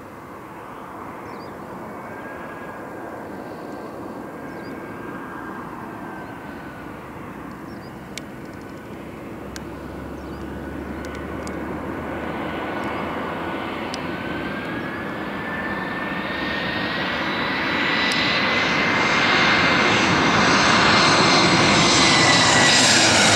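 Twin-engine jet airliner on final approach, its engines running with a steady rushing noise and a thin whine. The whine rises in pitch about two-thirds of the way through, and the sound grows steadily louder as the jet nears.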